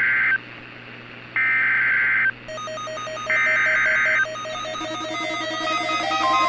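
SAME digital header data bursts of an Emergency Alert System weather-radio activation: harsh buzzing bursts about a second long, repeating with gaps of about a second. About halfway through, a pattern of rapid stepped electronic beeping tones starts under them and builds.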